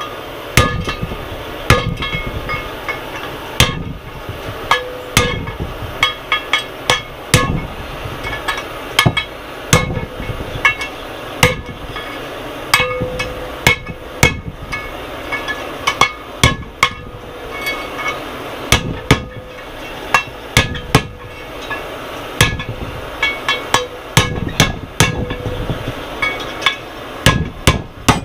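Hammer striking a steel punch to drive the starter ring gear off an IDI diesel's flexplate: irregular, loud metal-on-metal blows, about one to two a second, each leaving a short metallic ring.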